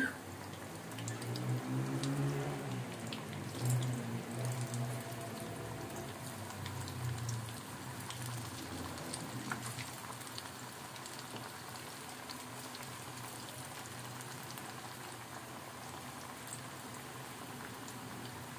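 Pakora batter deep-frying in hot ghee in a wok: a steady sizzle and bubbling with scattered small crackles. A low, wavering hum sits over the sizzle for the first several seconds.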